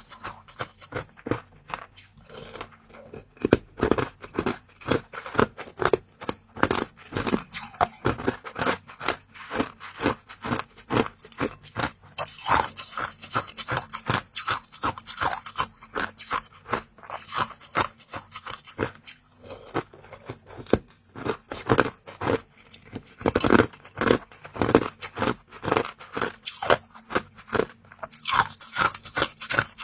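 Close-up crunching and chewing of crisp, hard bites of food: a dense, irregular run of sharp crunches with some scraping.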